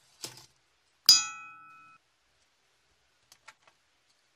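Small toy cars clattering as a hand rummages through them in a plastic bowl, with one sharp metallic ding about a second in that rings for under a second, then a few light clicks near the end.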